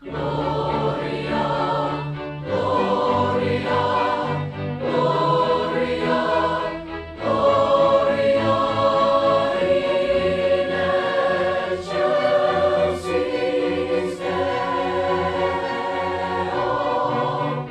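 Choral music: a choir singing in phrases, with brief breaks between the first few lines.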